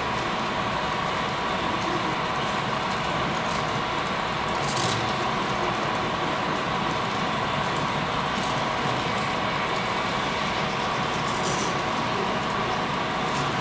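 Model Union Pacific GP30 and ALCO C855B diesel locomotives running along the layout's track at the head of a freight train: a steady running whir with a constant hum, and a brief faint hiss twice.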